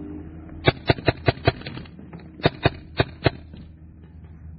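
Magfed paintball marker firing in two quick strings of sharp shots, about five and then four, each string lasting under a second.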